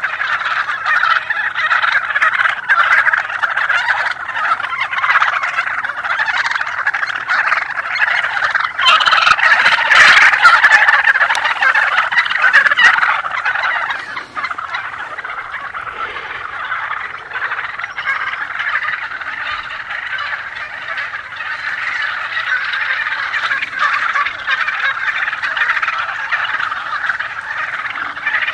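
A flock of wild turkeys calling and gobbling without a break, many birds overlapping, loudest about ten seconds in.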